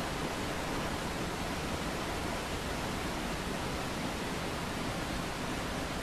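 Mountain waterfall: a steady, even rush of falling water that does not change in level.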